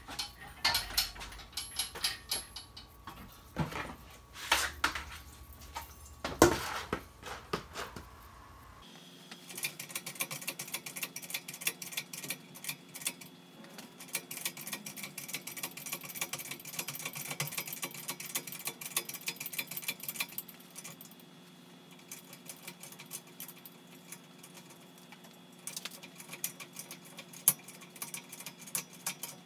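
Hand tools working metal in a car's engine bay: scattered clinks and knocks, then from about nine seconds in a long run of rapid light clicking and rattling over a faint steady hum, with more clicks near the end.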